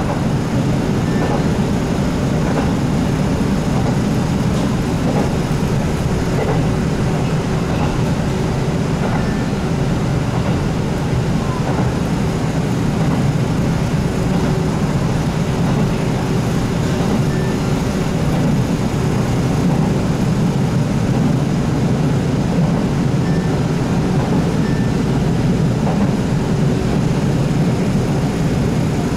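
Steady running noise of a KiHa 75 diesel railcar heard from inside the car: the drone of its Cummins diesel engine and the rumble of wheels on rail, with a faint steady hum, unchanging in level.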